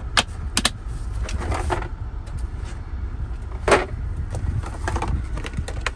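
Objects being handled and shifted around on a shelf: a few sharp clicks and knocks, two near the start and the loudest a little past the middle, over a steady low rumble.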